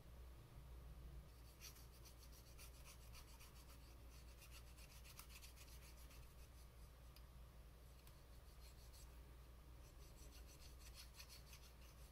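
Cotton swab scrubbing inside a hard rubber fountain pen barrel: faint, rapid scratchy rubbing in two spells, with a pause of a couple of seconds between them.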